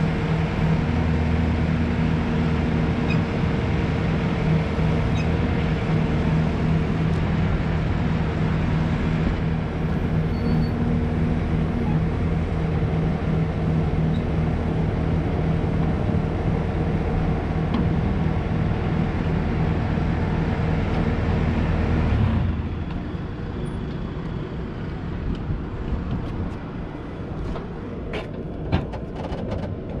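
2014 Bobcat S530 skid steer's diesel engine running steadily under way. About two-thirds of the way through, the engine sound cuts off abruptly, leaving quieter background noise with a few sharp clicks near the end.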